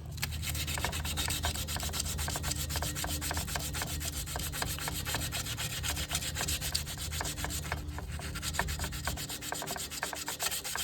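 Sandpaper rubbed by hand in rapid back-and-forth strokes on rusty steel of a snowblower engine, scouring it down to clean bare metal.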